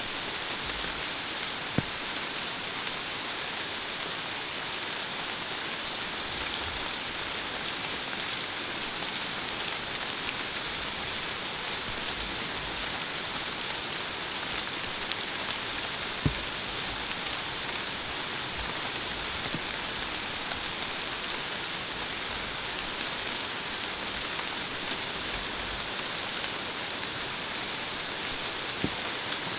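Steady rain hiss with a brighter high band, broken a few times by single sharp ticks.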